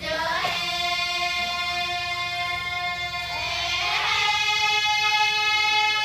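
A group of girls singing together in long held notes; about four seconds in they move to a new, slightly higher held note.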